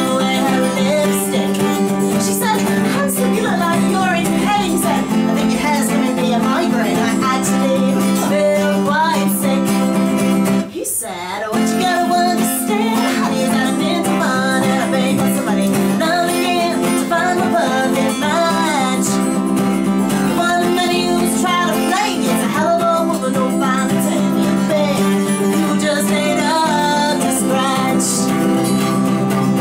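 A woman singing a folk-country song live, accompanying herself on a strummed red Fender acoustic-electric guitar. The music breaks off briefly about eleven seconds in, then carries on.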